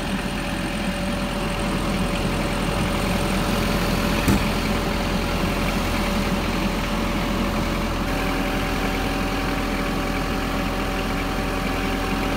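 Riding lawn mower engine running steadily at idle, its note shifting slightly about eight seconds in, with one faint click about four seconds in.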